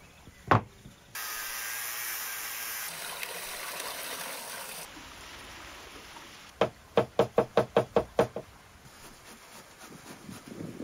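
A single heavy thud on a wooden board, then a few seconds of rushing water poured from a large pot. This is followed by a quick run of about ten sharp knocks, about five a second, and faint rasping of beetroot on a metal box grater near the end.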